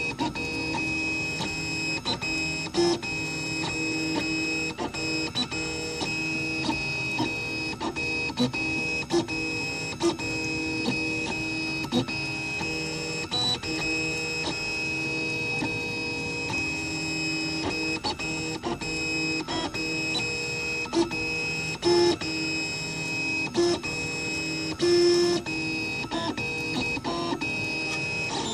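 3D printer running, its motors giving a steady whine of several pitches, broken by frequent short clicks and brief jumps in pitch.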